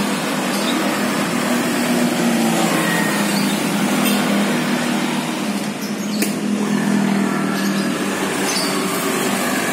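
Steady engine noise: a continuous hiss under a low hum that wavers slightly in pitch, with a few faint ticks.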